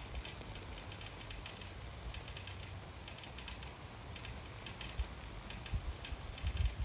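Rain-O-Mat brass ball drive sprinkler running, its water jets hissing with fine, irregular clicking and pattering. A few low thumps come near the end.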